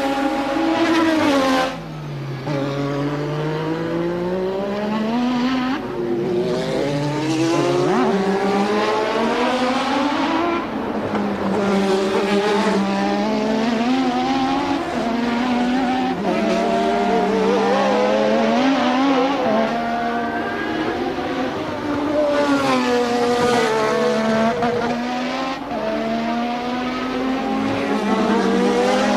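A 1988 Formula One car's engine at racing speed. Its pitch climbs repeatedly through the revs and drops sharply at gear changes and braking.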